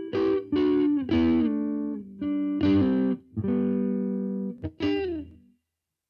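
Electric guitar with a new budget pickup, played through the Amplitube 4 amp simulator: a phrase of picked notes and double-stops with string bends and slides, which stops about five and a half seconds in.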